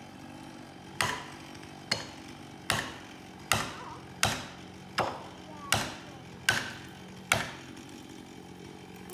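Nine heavy strikes on a felling wedge in the cut at the base of a large dead red gum, evenly spaced a little under a second apart, driving it in to tip the tree. A steady low hum runs underneath.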